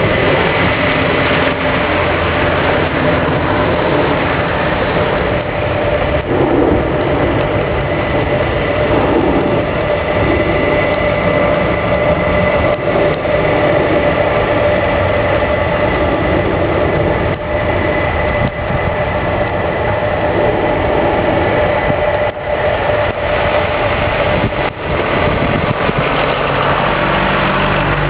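Boeing 767-400's jet engines running steadily, a loud rushing noise with a steady high whine and no rise or fall in pitch.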